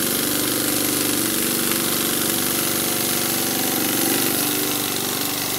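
Trojan model steam engine (Edgar T. Westbury design), a single vertical cylinder, running fast on full steam at about 45 psi. It gives a rapid, even beat under a steady hiss of exhaust steam.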